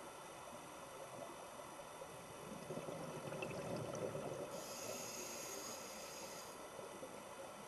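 Scuba diver's regulator breathing underwater: a swell of bubbling exhaust about two and a half seconds in, then a hissing breath through the regulator lasting about two seconds.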